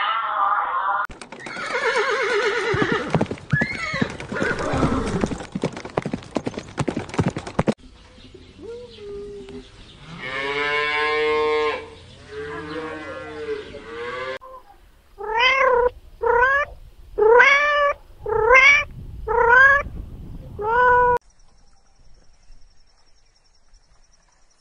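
A series of different animal calls one after another, ending in six short calls about a second apart, each rising and then falling in pitch.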